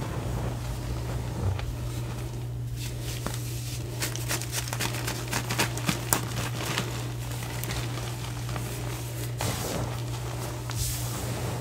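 Gym chalk blocks crumbling and crunching in bare hands, with hands pressing and rubbing into loose chalk powder: soft crunches and crackles, with a run of sharper snaps around the middle and a brushing hiss near the end. A steady low hum runs underneath.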